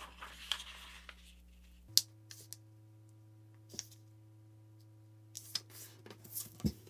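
A sheet of A4 paper folded in half and the crease pressed flat by hand: faint rustling, with a few short sharp crinkles and scrapes scattered through.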